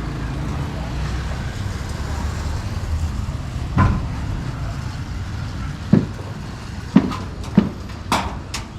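A steady low rumble, then about six short, sharp knocks at irregular intervals in the second half.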